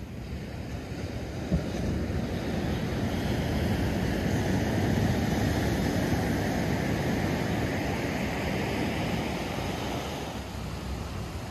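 Ocean surf: a wave breaks and washes up the sand, the rushing noise swelling to a peak about halfway through and easing off near the end, with wind rumbling on the microphone. A brief knock sounds about one and a half seconds in.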